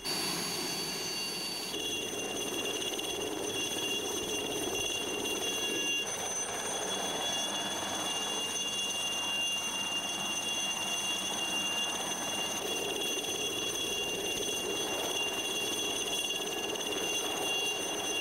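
Helicopter turbine engine running, a steady high multi-tone whine over a constant rushing of engine and rotor noise.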